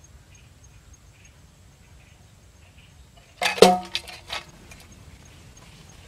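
Tin milk-can bird trap springing shut just over halfway through: one sharp metallic clang with brief ringing, then a few lighter clatters about half a second later.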